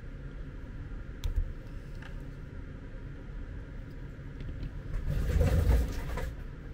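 Handling noise at a workbench over a low, steady background rumble: a sharp click a little over a second in, then a louder stretch of rustling and scraping about five seconds in as the knife and cable are put down and the person gets up from the bench.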